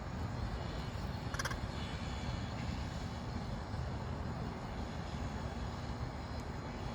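A crow gives one short call about a second and a half in, over a steady low background rumble.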